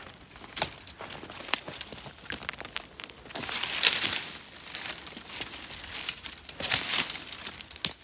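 Dry fallen leaves and twigs rustling and crackling as someone pushes through brush, with sharp twig snaps throughout and a louder rush of rustling about three to four seconds in.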